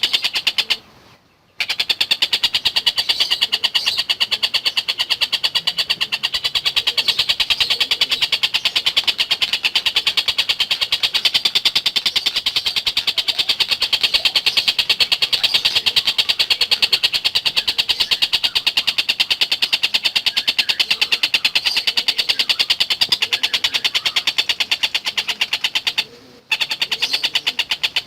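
Tengkek buto kingfisher calling in a long, fast, unbroken chatter of sharp repeated notes, pausing briefly about a second in and again near the end.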